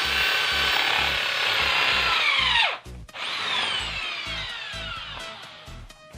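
Electric drill boring into a Vespa crankcase with a 9 mm bit: the motor whines at steady speed, then winds down and stops a little under three seconds in. It is run again briefly about a second later and spins down over the next few seconds. Background music with a steady beat plays underneath.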